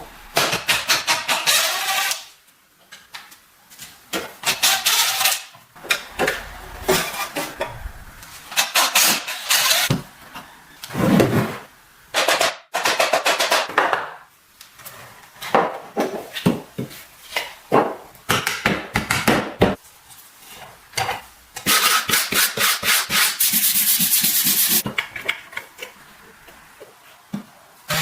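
Hand sanding strokes, rubbing back and forth in quick runs of a second or two with short pauses between, and a steadier few seconds of continuous rubbing near the end.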